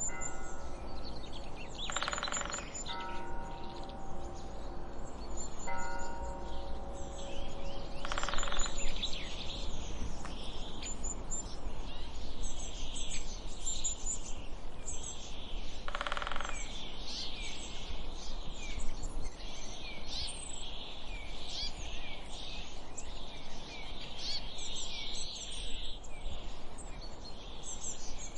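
A bell ringing, several of its tones sustained through roughly the first nine seconds, while many small birds chirp and sing; the birdsong grows denser after the bell tones fade.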